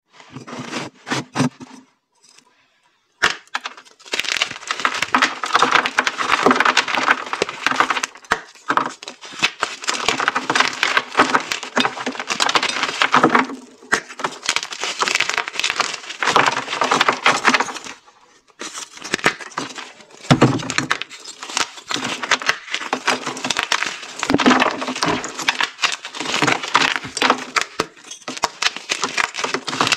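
Hard pink-dyed reformed gym chalk blocks being snapped and crushed by hand: dense crunching and crackling in bouts of a few seconds, broken by short pauses.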